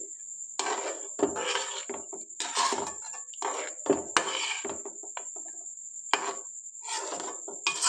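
A metal spoon stirring and scraping through thick chicken curry gravy in a metal pot, in a series of irregular strokes against the pot.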